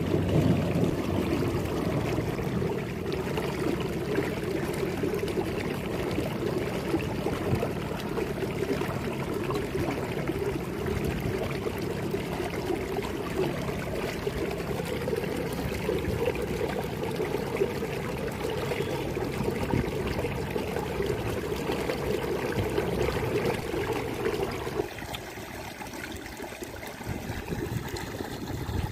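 Irrigation water running steadily in a field channel, getting quieter near the end.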